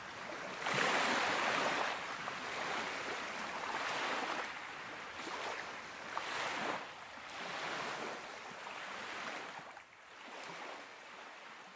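Small waves of the Baltic Sea washing onto the beach, in soft swells of surf a second or two apart, fading out near the end.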